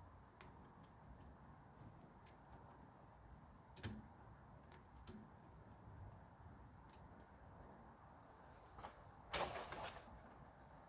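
Scattered light clicks and taps from the keys and metal parts of a 1939 Royal Quiet De Luxe manual typewriter being handled, with a sharper knock about four seconds in and a short scraping rustle near the end.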